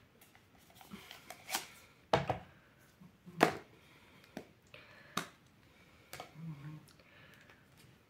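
About half a dozen sharp, irregular clacks and knocks of hard plastic, the loudest two about two and three and a half seconds in, as baby bottles are set onto a snap-together plastic bottle drying rack.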